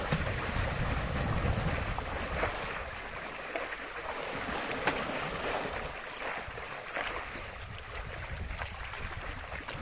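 Muddy pond water sloshing and splashing as an Asian elephant mother and calf wallow and roll in it, with wind rumbling on the microphone.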